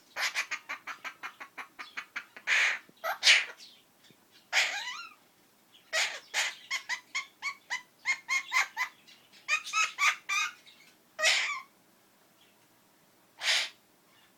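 Princess parrot (Princess of Wales parakeet) calling: a fast run of short chattering notes, then a few louder single calls, more runs of quick chirps, and two spaced single calls near the end.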